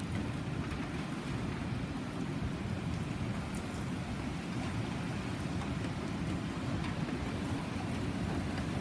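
Typhoon wind and heavy rain: a steady low rumble of wind under an even hiss of rain falling on wet corrugated metal roofing.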